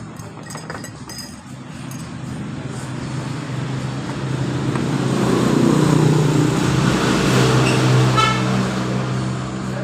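A motor vehicle passing close by, its engine hum growing louder to a peak about six to eight seconds in and then fading, with a brief horn toot about eight seconds in.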